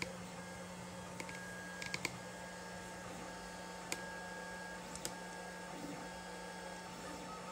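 Lulzbot TAZ 5 3D printer running: a steady low hum with short whining tones that start and stop, and a few sharp clicks.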